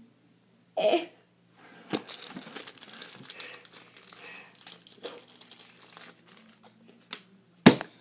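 Thin clear plastic wrapper crinkling as it is handled and folded, a crackly run of small clicks. There is a short loud burst about a second in and a sharp knock near the end.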